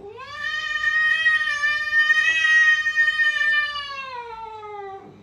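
A domestic cat's long drawn-out yowl: one call of about five seconds that rises at the start, holds steady, and sinks in pitch as it fades near the end.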